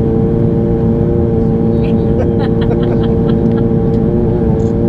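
Inside the cabin of a Bombardier Dash 8 Q400: steady drone of its Pratt & Whitney PW150A turboprops and six-bladed propellers. It is a multi-tone hum over a heavy low rumble, a constant buzzing noise that sounds like a lawn mower.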